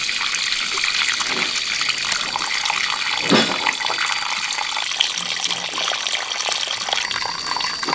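Water pouring in a thin, steady stream from a tilted plastic basin and splashing into a puddle on the ground, as the basin is drained.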